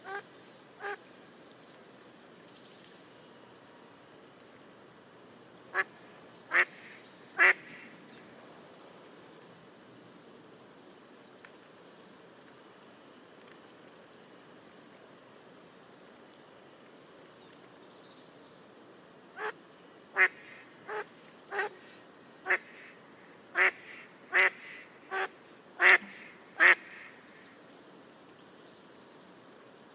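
Mallard quacking in short, loud calls: two at the start, three about six seconds in, then a run of about ten quacks, a little under one a second, in the last third.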